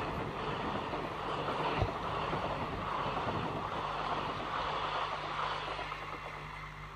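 Passenger train coaches rushing past, a steady rush of wheel and wind noise that fades as the last coach pulls away near the end. A single low thump comes nearly two seconds in.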